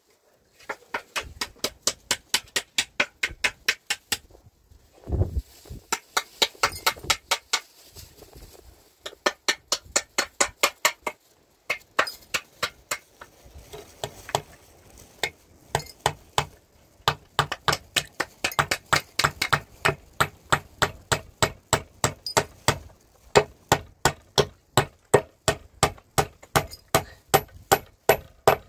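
Rapid hammer blows, about four a second, in runs of a few seconds with short pauses between, as when nails are driven.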